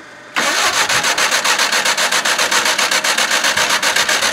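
A hand tool rasping on metal in quick, even strokes, about six a second, starting abruptly about half a second in.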